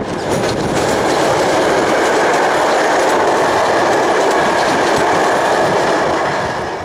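EP07 electric locomotive and its train of passenger coaches passing, a steady loud rolling noise of wheels on rail. It eases off near the end as the last coaches go by.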